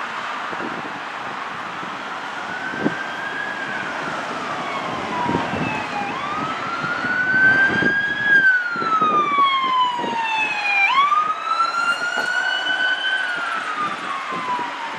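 Emergency vehicle siren wailing, its pitch rising and falling slowly every few seconds, growing louder about halfway through.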